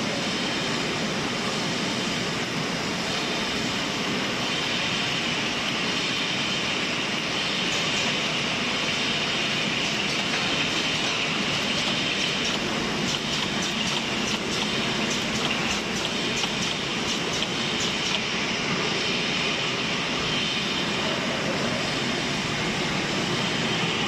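Bottle filling and capping line running steadily: slat-chain conveyors carrying filled plastic juice bottles through the capping machine. A run of quick light clicks comes through the middle.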